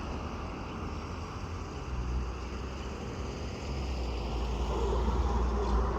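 Wind buffeting the microphone, heavier from about two seconds in, over a faint steady drone of a distant light-aircraft engine.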